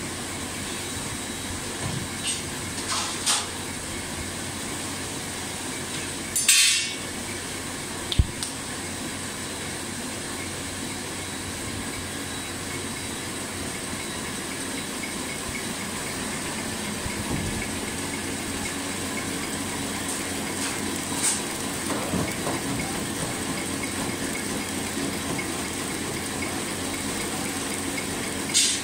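Cookie packing line running: conveyor motors and machinery give a steady hum with a thin high whine, broken by a few short hisses, the loudest about six seconds in, and a sharp click about eight seconds in.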